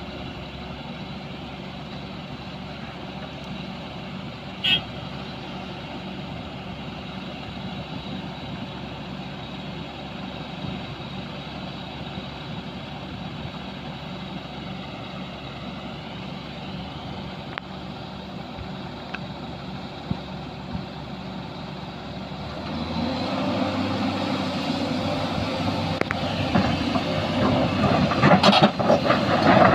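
Excavator diesel engine running steadily, with a brief high squeak about five seconds in. A little over twenty seconds in, the engine grows louder and rougher, with clattering near the end as the machine works.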